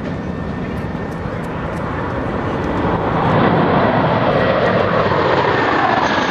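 Jet engines of a formation of F-14 Tomcat fighters flying low overhead: a loud rushing jet noise that builds for about three seconds, then a whine that falls in pitch as they pass.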